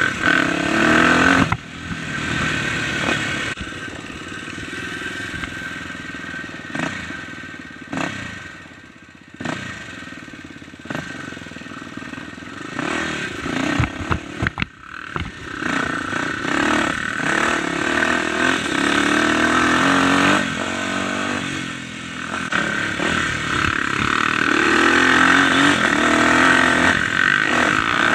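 Dirt bike engine running as the bike rides a rough trail, heard from the bike itself, easing off and getting quieter for a few seconds in the middle. About halfway there is a run of knocks and rattles as the bike rolls over a log crossing, then the engine pulls louder again toward the end.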